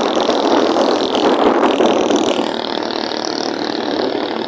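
Motorcycle running at road speed, its engine under a steady rush of wind and road noise on the bike-mounted microphone.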